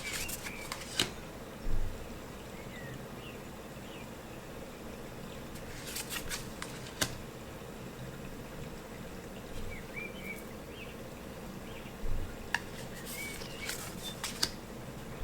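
Tarot cards being handled and flipped one after another: scattered light clicks and snaps of card stock, in a few clusters, with two soft thumps, over faint room tone.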